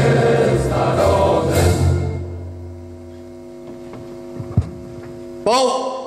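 Choral music with singing, fading out about two seconds in to a held chord. Near the end a new sound starts suddenly with a falling pitch.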